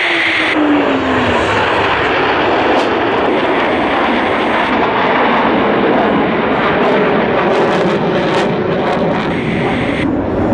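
Four F/A-18 Hornet jet fighters passing close overhead in formation, their twin turbofans making a loud, steady jet rumble. A tone in the engine noise falls in pitch during the first second or so as they go past, then the rumble carries on as they fly away.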